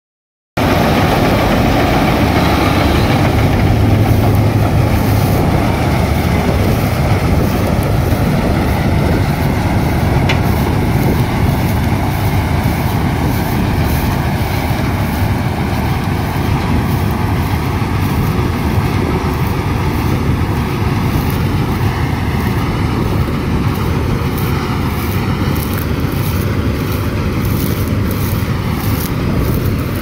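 Hira self-propelled combine harvester running under load while harvesting wheat: its diesel engine and threshing machinery make a loud, steady drone that eases off slightly as the machine moves away.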